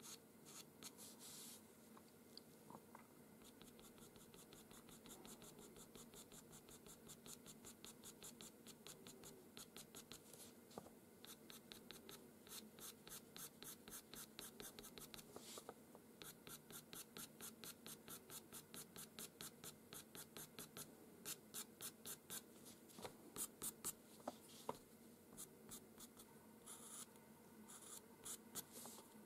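Pastel pencil scratching over paper in quick short strokes, several a second, faint at first and more distinct in the second half.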